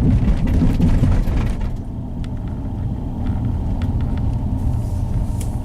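Road and engine rumble heard inside a moving car's cabin, heavier for the first couple of seconds and then easing to a steadier lower level, with a few faint ticks.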